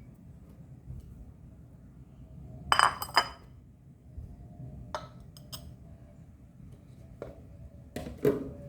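Glass clinking as dried herbal ingredients are put into a glass container: two sharp ringing clinks close together about three seconds in, then a few lighter taps and knocks.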